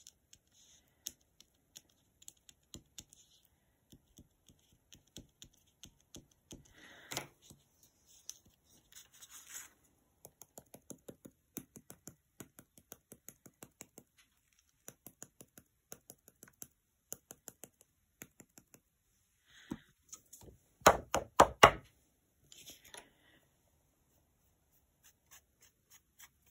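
Light scattered taps and clicks of hand crafting work: a glue pen on card and a jar of glitter being tapped out over the card. About three-quarters through comes a quick run of louder knocks.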